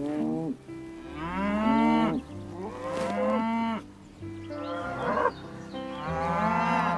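Cattle mooing repeatedly: several long moos one after another, each rising and falling in pitch, over soft sustained background music.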